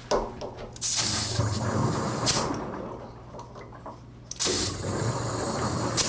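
Two bursts of compressed air hissing from an air chuck into a Sediment Buster on a water heater's drain valve, the first about a second in and the second about four and a half seconds in, with a sharp click during the first. The air is meant to break up sediment clogging the drain and stir up the bottom of the tank.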